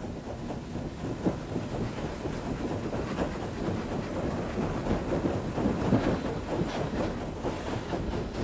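Cab noise of Union Pacific 844, a 4-8-4 Northern steam locomotive, getting under way: a steady rumble and hiss with irregular knocks and clanks.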